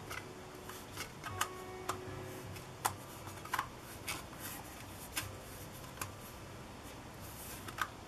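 Hard plastic petal-shaped lens hood handled in the hands, giving irregular light clicks and taps of plastic, the sharpest about three seconds in.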